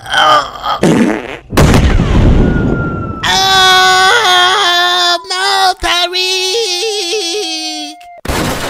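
Cartoon sound effects: a loud gassy blast about a second and a half in, the bear's fart going off like an explosion, then a long wavering cartoon wail as he is blasted upward. A short noisy burst comes near the end.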